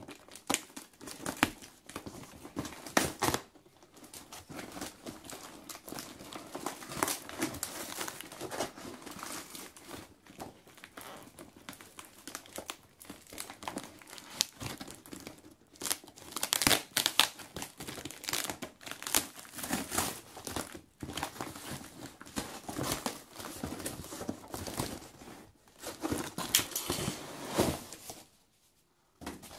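Packaging being crumpled and torn by hand as a parcel is unwrapped, in irregular crackling bursts that pause briefly near the end.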